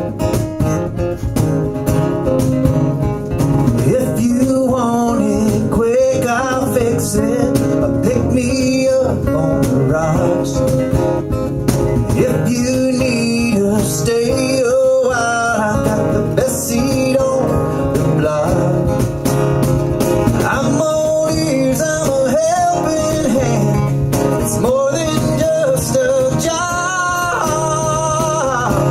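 Live acoustic country music: guitars playing a steady accompaniment under a wavering, sliding melody line.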